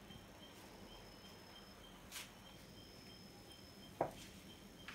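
Faint background with an insect chirping high and evenly, about three chirps a second. Two brief soft handling noises come about two and four seconds in.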